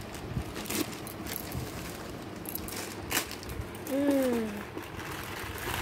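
Clear plastic wrapping crinkling and rustling in short bursts as it is handled and pulled off a new pressure cooker. A brief falling tone, like a short hum from a voice, comes about four seconds in.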